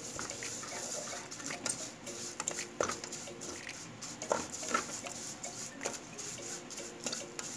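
Wooden spatula stirring and scraping vermicelli around a metal pan: a run of short scrapes and light knocks, a few sharper ones in the middle.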